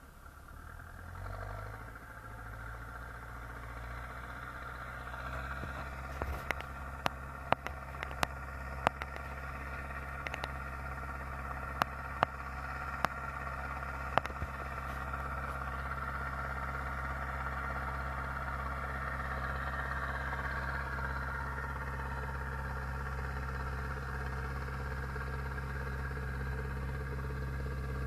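Zetor 7745 Turbo tractor's turbocharged four-cylinder diesel running steadily while ploughing, growing louder over the first few seconds and then holding. Between about six and fourteen seconds in there is a run of sharp clicks and clatters.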